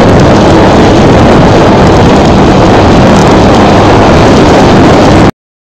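Dirt bike engine running, heard through a camera microphone, very loud and distorted with wind noise; the sound cuts off suddenly about five seconds in.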